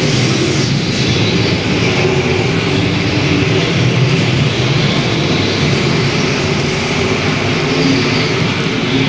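Dirt-track modified race cars running at full throttle in a pack, their engines making a loud, steady drone.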